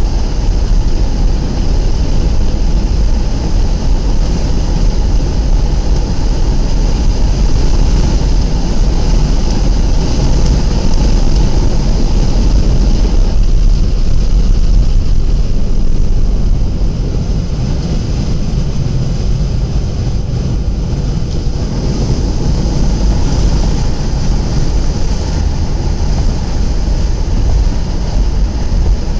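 Buick Rendezvous driving at road speed, heard from inside the cabin: a loud, steady rumble of tyre, engine and wind noise. It eases off slightly for a few seconds around the middle, then comes back up.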